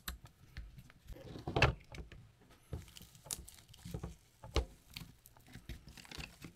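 Scattered small clicks, taps and rustles of hands taking apart an FPV racing drone: a screwdriver on the frame's top-plate screws, then fingers working the fabric battery strap and foam pad. There is one louder knock about one and a half seconds in.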